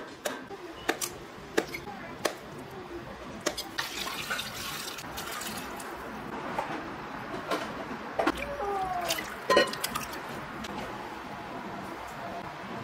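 Kitchen knife cutting through mung bean jelly onto a wooden cutting board, a few sharp taps about a second apart, then water being poured into a plastic container, with scattered knocks of the container.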